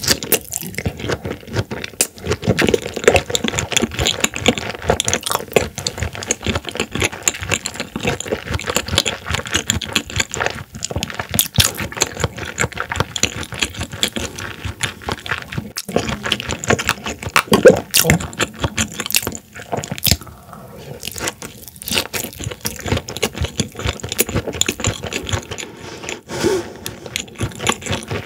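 Close-miked chewing of raw horse mackerel sashimi: a steady stream of small, irregular mouth clicks and smacks.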